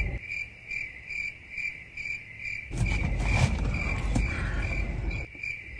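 Crickets chirping in a steady, even rhythm of a little over two chirps a second. A low rumble rises in the middle and fades again.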